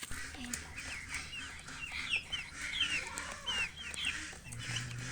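Baby chicks peeping: many short, high chirps that slide down in pitch, with a hen's low clucks underneath.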